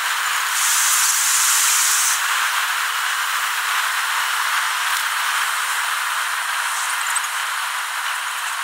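Steady hissing road and wind noise inside a car moving on a highway, from a recording sped up about tenfold so it comes across as an even hiss with little low rumble. A louder, higher hiss swells about half a second in and drops back about a second and a half later.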